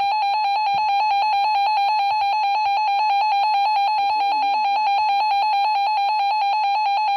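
RadioShack 12-258 weather radio's alert tone: a loud, high electronic beep pulsing rapidly without a break.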